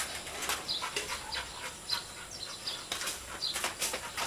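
Flip-flop footsteps slapping irregularly on a concrete path as a man walks, with short high chirps in the background.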